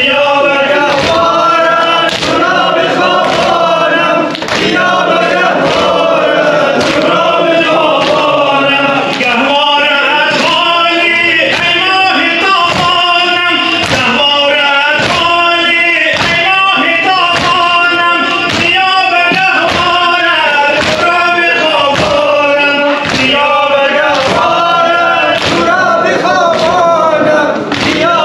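Men singing a Shia mourning lament (noha) together, over a steady beat of chest-beating (sineh-zani) thuds a little faster than one a second.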